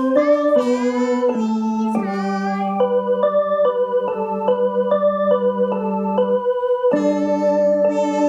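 Child singing over an electronic keyboard for the first two seconds or so, then the keyboard alone: steady sustained chords changing about twice a second over a long held low note.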